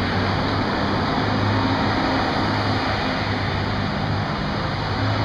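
Large boat-handling forklift's engine running steadily: a low drone under an even wash of noise, swelling and easing slightly.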